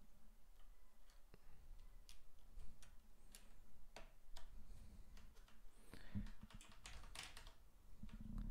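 Faint scattered plastic clicks and snaps as keycaps are pulled off and pressed back onto the Cherry MX Red switches of a Corsair K70 mechanical keyboard, swapping in the spare textured keycaps; a quick run of clicks comes near the end.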